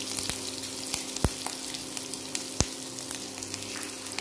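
Hot oil sizzling around mustard seeds, cumin, green chillies and grated ginger in a steel pan, with scattered sharp pops as the seeds crackle. Two pops stand out, about a second in and again past halfway. A steady low hum runs underneath.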